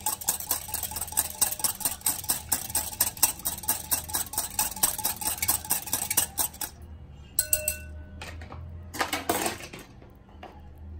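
Whisk beating curd in a glass bowl: rapid scraping and clinking strokes against the glass, which stop about two-thirds of the way through.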